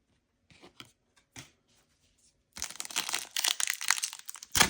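A few faint rustles, then, a little past halfway, a dense crinkling and tearing of a foil trading-card pack wrapper, with one sharp louder crackle near the end.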